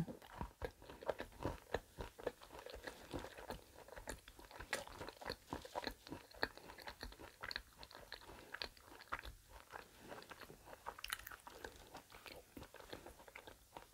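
A person chewing the hazelnut-studded chocolate shell of a Ferrero Rocher Easter egg, with quiet, irregular crunching and small crackles.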